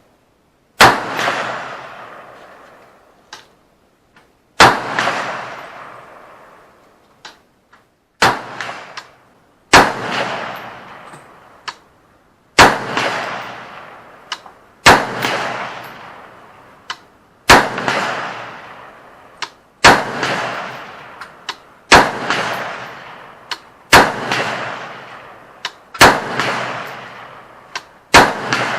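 Gunshots: about a dozen loud single shots, fired every two to four seconds and coming faster toward the end, each trailing off in a long echo, with a few fainter shots in between.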